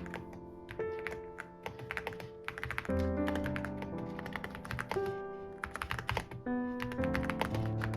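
Typing on a Yunzii B87 mechanical keyboard: a quick, irregular stream of key clacks, heard over background music with held chords.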